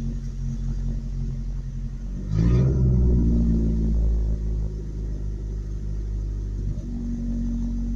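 Truck engine idling, then briefly revving up about two seconds in and settling back to an uneven idle. The truck conks out when put into gear, which the owner suspects is a fuel or fuel-injector problem.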